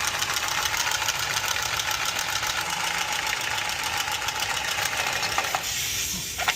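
Power tool cutting through a live, pressurised water pipe: a steady, fast rattling noise that stops about five and a half seconds in.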